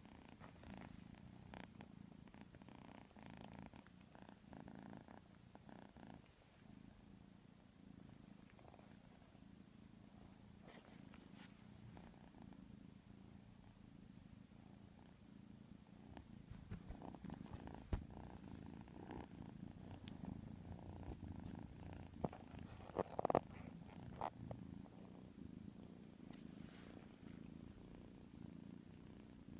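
Kitten snoring softly in its sleep, a steady low sound. A few brief knocks about two-thirds of the way through.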